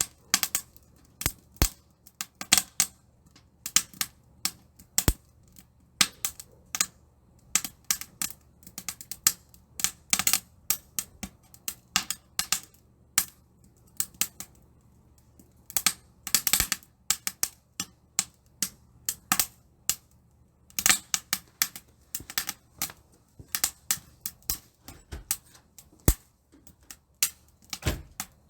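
Wood fire crackling and popping in a titanium camp stove, with irregular sharp snaps several times a second.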